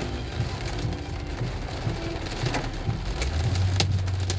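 Rain hitting a car's roof and windshield, heard from inside the car: a steady hiss broken by many scattered sharp ticks of drops, over a low rumble from the moving car. A low steady hum swells near the end.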